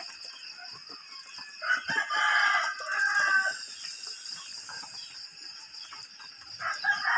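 A drawn-out animal call of about two seconds, starting a second and a half in, with a second call beginning near the end. A steady high-pitched trill runs underneath.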